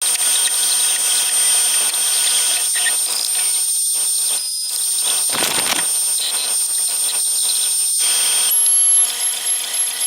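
A power tool running with a steady high-pitched whine. Its pitch steps up near the end, where the level starts to pulse a few times a second.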